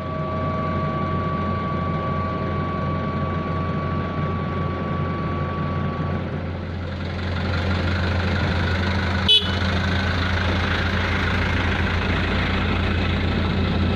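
Heavy engine of asphalt-paving machinery running steadily, with a steady whine that stops about six seconds in. The engine grows a little louder after that, and there is one sharp click about nine seconds in.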